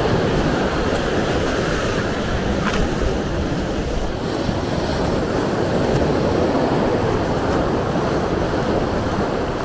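Strong wind buffeting the microphone in a steady low rumble, over the wash of surf breaking on the beach.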